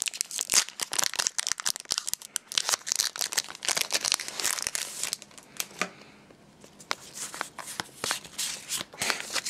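Foil Pokémon trading-card booster pack being torn open, its wrapper crinkling and crackling densely for about five seconds. Then quieter rustling and light clicks as the cards are slid out and handled.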